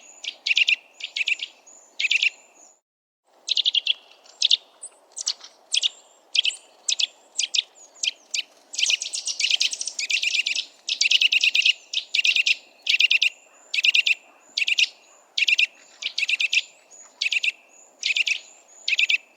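Eurasian nuthatch giving loud, repeated piping calls, roughly two a second, breaking off briefly near the start and speeding into a dense run of rapid notes about halfway through. A faint low background noise lies underneath.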